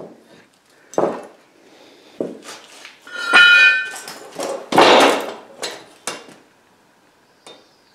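Metal clanks and knocks from a pipe wrench with a long steel pipe lever being forced against the stuck threaded cap of an old hydraulic ram. A short ringing metallic squeal comes about three seconds in, a louder clatter about a second later, then a few lighter clicks.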